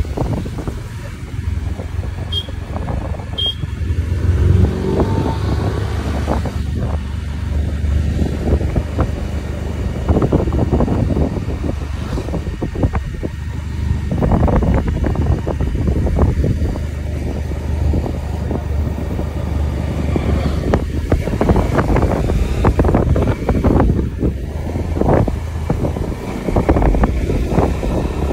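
Motorcycle riding along a road, its engine running steadily under a dense rush of wind over the microphone.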